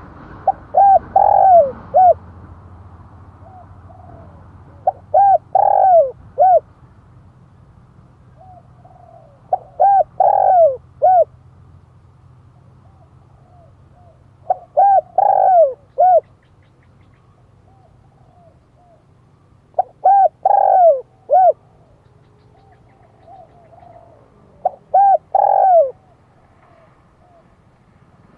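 Dove cooing: a phrase of several arched coo notes lasting about two seconds, repeated six times at roughly five-second intervals. A faint low hum runs underneath.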